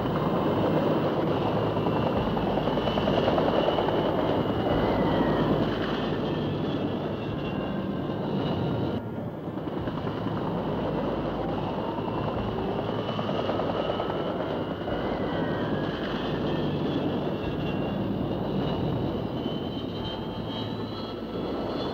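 AH-64 Apache attack helicopter flying past in steep manoeuvres: continuous rotor and twin-turboshaft noise, with a whine that glides up and down in pitch. There is a brief drop in level about nine seconds in.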